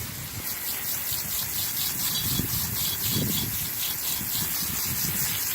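Water spraying from a garden hose nozzle onto ceiling fan parts, a steady hissing spray that flickers rapidly as the jet plays over them.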